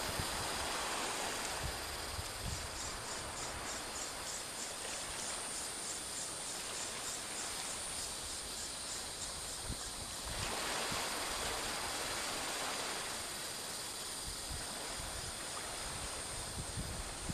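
Small waves lapping in shallow sea water, a steady hiss that swells and eases. A faint, quick, even ticking, about four a second, runs from about two seconds in to about ten seconds in.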